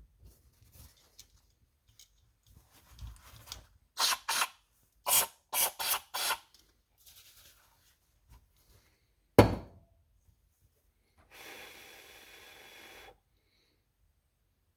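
Aerosol carburetor cleaner sprayed into a gummed-up small-engine carburetor: about six quick spurts, a single sharp knock, then one steady spray lasting about two seconds.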